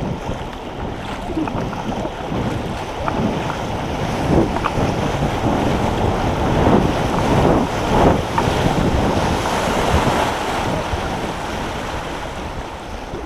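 Loud, steady rushing of moving water, with wind buffeting the microphone. It starts abruptly and drops off suddenly at the end.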